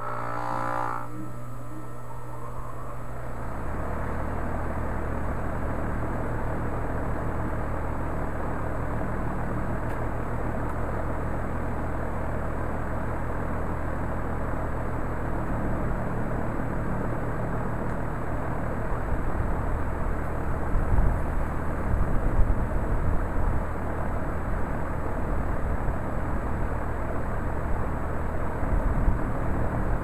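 2010 Tempstar 3-ton heat pump outdoor unit running: a steady low hum, joined about three seconds in by the steady rush of the outdoor fan's airflow. Uneven low rumbling comes and goes in the last third.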